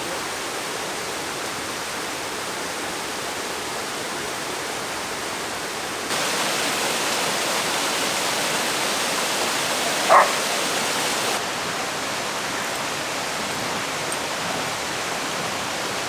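Steady rush of a waterfall, louder for a stretch in the middle, with a single short dog yelp about ten seconds in.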